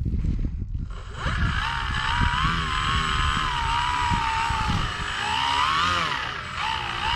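Electric motor and propeller of an RC model Cessna 188 whining as the plane taxis on grass. The whine starts about a second in and its pitch rises and falls repeatedly as the throttle is worked, with the plane catching on the grass.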